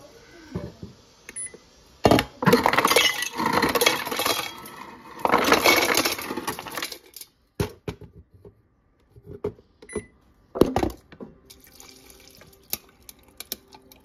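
Refrigerator door dispenser running water into a stainless-steel tumbler in two long pours, followed by a few sharp clicks and knocks.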